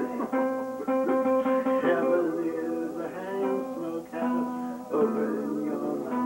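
Steel guitar playing held notes, several at a time, that slide and waver in pitch.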